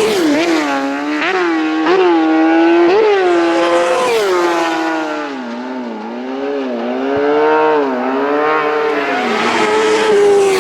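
Racing motorcycles at full throttle on a closed road course. The engine pitch climbs and then drops sharply at each gear change, several times in the first few seconds. The note falls away in the middle, then rises again as the bikes come through.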